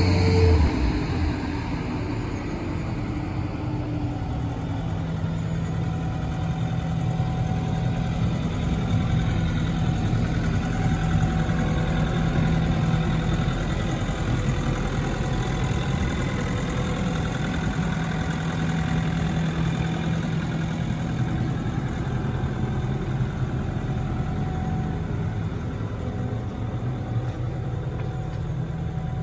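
Diesel engine of a 2015 Kobelco SK75SR-3E 7.5-tonne excavator idling steadily, at an even pitch with no revving.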